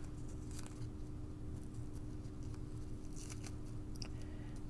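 Faint, scattered crinkling and rustling of a metallic ribbon bow as fingers spread out its loops, a few small crackles over a steady low hum.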